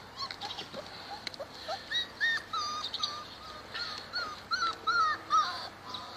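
Several young puppies whimpering and squealing in short, overlapping high cries, louder from about two seconds in.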